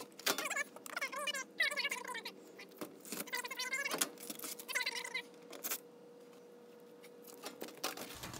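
Short squeals and scrapes of sheet metal being worked by hand, mixed with metallic clicks and knocks: a galvanized furnace vent pipe is being shifted and a screwdriver is working on the coil cabinet's sheet-metal panel. A faint steady hum underneath stops near the end.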